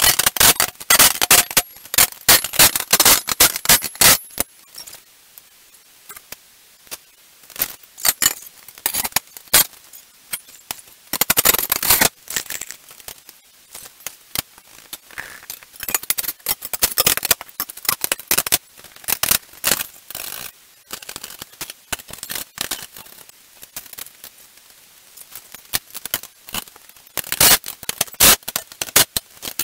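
Steel shop-press frame parts and bolts clanking and rattling during assembly, with bursts of a cordless drill/driver running the bolts in. The clatter comes in several short loud bunches with quieter gaps between.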